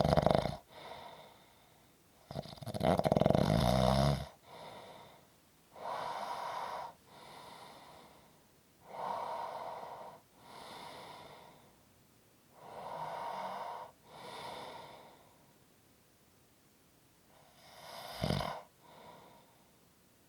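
A sleeping person snoring: two loud rattling snores in the first four seconds, then three rounds of quieter heavy breathing in and out, and a short snort about eighteen seconds in.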